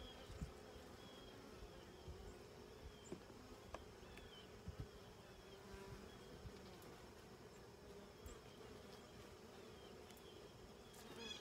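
Honeybees buzzing faintly over an opened hive, a low wavering hum, with a few light knocks.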